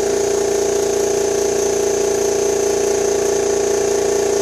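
Steady, loud electric-motor hum from the pneumatic window-control rig as it runs its fully-open test, holding one even pitch throughout.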